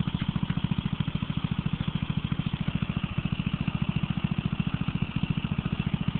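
Off-road modified riding lawn mower's engine idling steadily, an even chugging of about ten beats a second.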